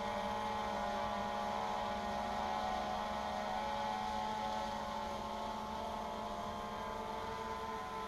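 DJI Phantom 2 Vision Plus quadcopter's four electric motors and propellers humming steadily in flight, a cluster of steady tones that drift slightly in pitch as the motors adjust.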